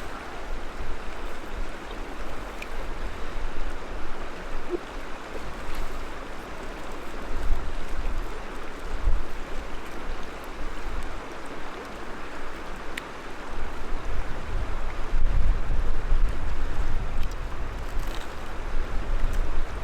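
Steady rushing outdoor noise with irregular gusts of wind buffeting the microphone, strongest about halfway through and again in the last third.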